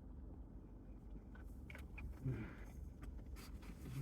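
Someone chewing fast food, with small wet mouth clicks and a brief voiced sound about two seconds in, over a steady low hum.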